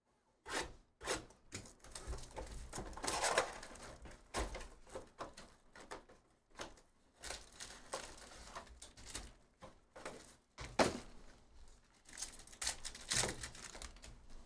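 Plastic shrink wrap crinkling and tearing as it is pulled off a sealed trading-card hobby box, mixed with cardboard and foil packs being handled. A string of rustles, crinkles and light knocks, densest about three seconds in and again near the end.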